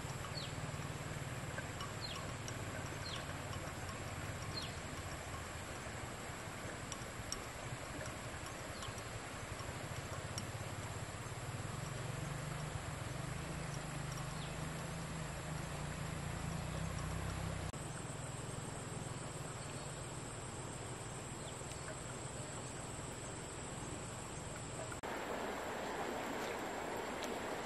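Outdoor rural ambience: a steady high insect drone over a low rumble, with a few short chirps scattered through. About 25 seconds in it changes to a broader, louder hiss.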